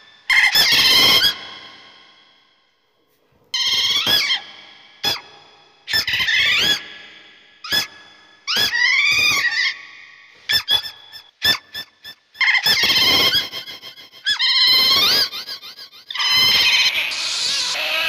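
Otter giving a string of high-pitched squealing calls, each about a second long and bending up and down in pitch, with a run of short clicks in the middle.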